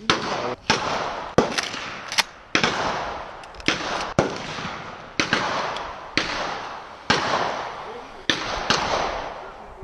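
Gunfire at a shooting range: about a dozen shots at uneven intervals, roughly one every half-second to second, each followed by a long echoing decay.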